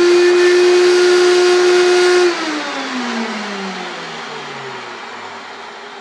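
Vacuum cleaner motor running at full speed with a steady whine, then switched off a little over two seconds in, its pitch falling as it spins down.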